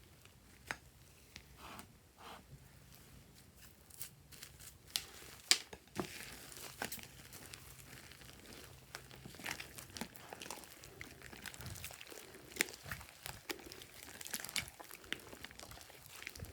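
Sticky slime being squeezed and stretched by hand, making crackling, popping clicks that come thicker after about six seconds.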